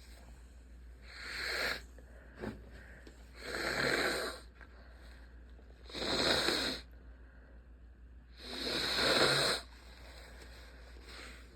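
A person in a sneezing fit: four breathy sneezes about two and a half seconds apart, each building up and then cutting off sharply.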